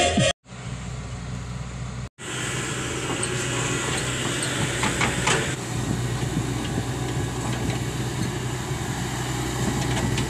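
Excavator's diesel engine running steadily, with a few faint clicks between about three and five seconds in.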